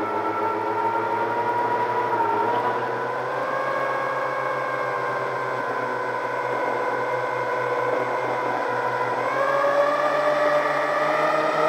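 The twin electric motors and propellers of an RC plane whining steadily, heard from the camera on board. The pitch dips and then rises about two seconds in, and rises again near the end.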